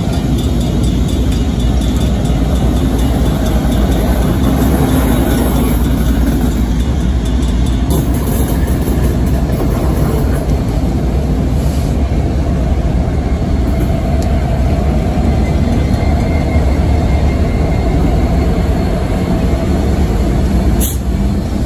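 A pair of diesel freight locomotives rolling slowly past in reverse, their engines giving a steady, deep rumble. A brief sharp click comes near the end.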